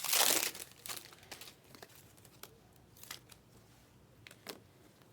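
A trading-card pack wrapper being crinkled and torn open, loud for the first half second. It is followed by scattered light clicks and snaps as the cards are handled.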